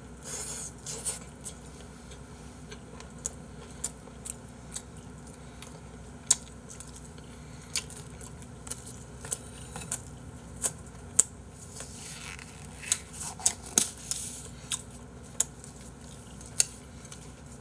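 Irregular sharp clicks and short rustles of someone eating pizza: chewing, and gloved hands handling the cardboard pizza box and the plate. There are a few longer rustles about two thirds of the way in.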